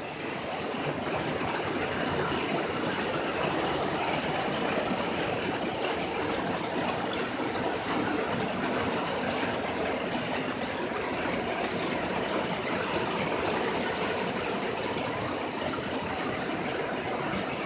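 Powerful, heavy rain pouring down, a dense steady hiss with no let-up.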